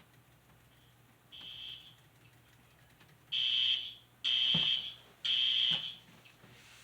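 Recorded fire alarm sound played through a Bluetooth speaker: a high-pitched beeping tone, one faint beep, then after a pause three loud beeps about a second apart, in the temporal-three evacuation pattern.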